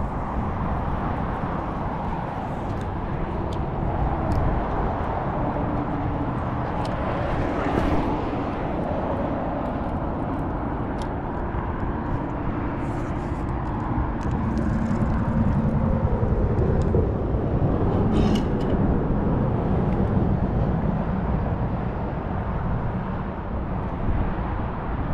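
Steady outdoor low rumble of wind and road traffic on a bridge, swelling for a few seconds past the middle as a vehicle seems to pass, with a scatter of light clicks from handling a fishing rod and reel.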